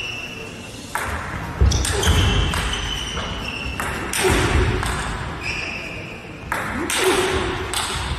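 Table tennis rally: the plastic ball clicking off rackets and the table, several sharp hits at irregular spacing, each ringing on in a large hall.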